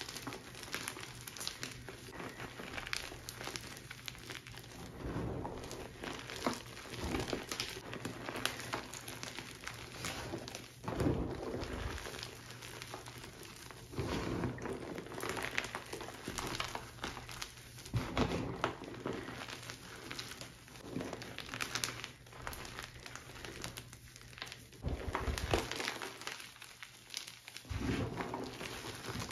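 Plain gym chalk crushed by bare hands: a steady gritty crunching and crumbling as the fingers squeeze and press into the powdery chunks, with louder crunches every few seconds. The chalk crunches without being hard, described as glassy yet foamy.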